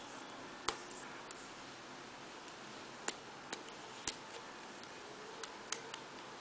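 Fingertip taps on the plastic resistive touchscreen of a JXD S18 mini tablet: several short, sharp clicks at irregular intervals over a faint steady hiss.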